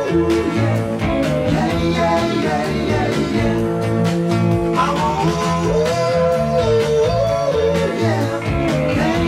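Early-1970s rock band recording: guitar, bass and drums over a steady beat, with a lead line that slides up and down in pitch.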